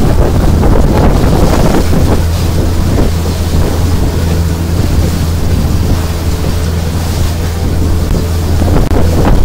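Tour boat's engine running with a steady low drone, under heavy wind buffeting the microphone and the wash of the sea.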